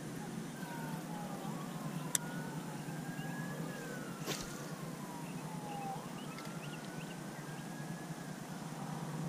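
Distant emergency sirens wailing, their pitch sliding slowly up and down, with two sharp pops about two seconds apart from tyres bursting in a burning car.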